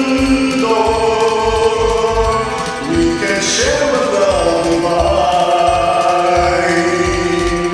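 Karaoke backing track playing: a steady low beat under long held melody notes, with one note gliding up about halfway through.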